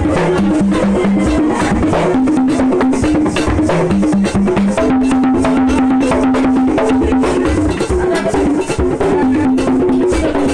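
Loud drum and percussion music: rapid, dense hand-drum strokes over a low melody of held notes stepping between a few pitches.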